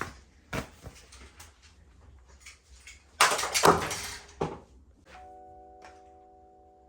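Handling noises: a few light knocks, then a loud rustle lasting about a second, about three seconds in. Soft background music with long held notes starts about five seconds in.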